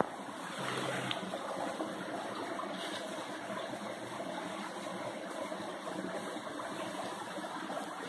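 Small forest stream running steadily over stones.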